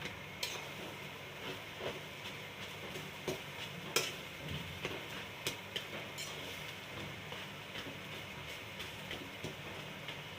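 Food cooking in a pot with a steady sizzling hiss, and a spoon clicking against the pot every second or so as it is stirred.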